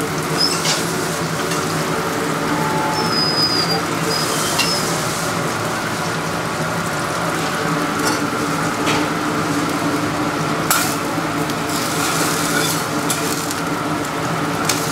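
Food sizzling on a hot dosa griddle over a steady hum. A few sharp metal utensil clicks and brief high squeaks come through.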